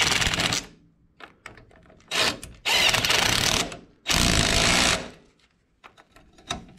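Power driver on a long socket extension running bolts home in bursts of about a second, several times, each burst a fast steady rattle that stops abruptly.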